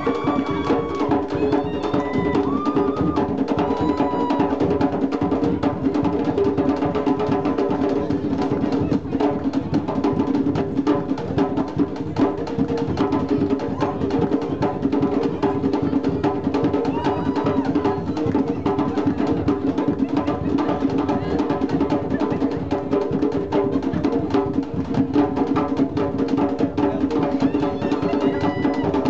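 Live Gwo ka hand drums: the boula keeps the steady base rhythm while two makè drums play fast lead strokes over it, dense and unbroken throughout.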